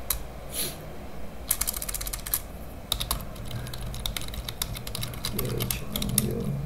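Computer keyboard being typed on: quick runs of keystroke clicks with a short pause between runs.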